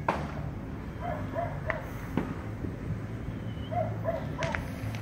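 A dog barking in quick sets of three short barks, twice. There are a few sharp pops, the loudest right at the start, over a steady low city hum.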